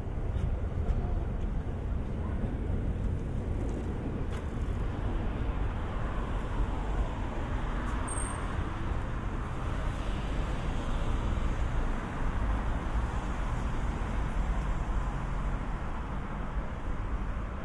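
Road traffic on a city street: a steady rumble of cars running past, with one vehicle's passing noise swelling and fading around the middle.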